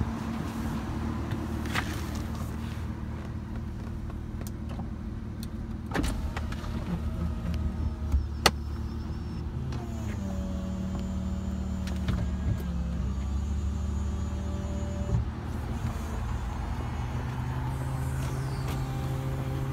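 Aston Martin DB9's V12 idling steadily, with a couple of sharp clicks. About halfway in, an electric motor whines steadily for about five seconds.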